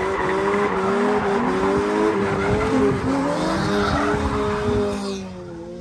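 Nissan 350Z's V6 engine revving up and down, with its tyres squealing as the car drifts past, dying away near the end.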